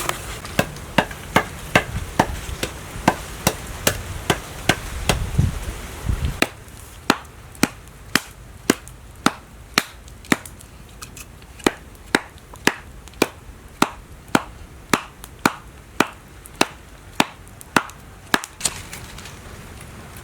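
A knife chopping on a cutting board in a steady rhythm of about two strokes a second, stopping shortly before the end. A low rumble sits under the first six seconds.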